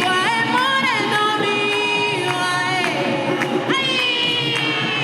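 Singing with music: long held notes that slide up and down between pitches, over a background of crowd noise.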